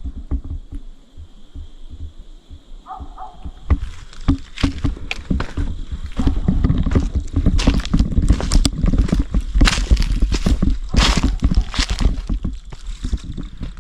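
Footsteps crunching and rustling through dry fall leaves and brush on a woodland trail, with handling knocks on the hand-held camera, busier and louder from about four seconds in. A faint steady high-pitched tone runs underneath.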